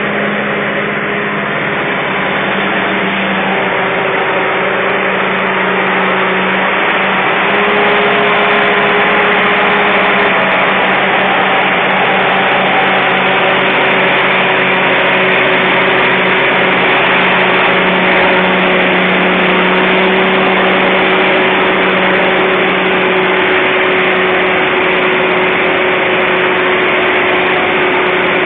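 Heavy mobile crane truck's diesel engine running steadily under load as its wheels work through deep mud, a constant-pitched drone that grows a little louder over the first several seconds.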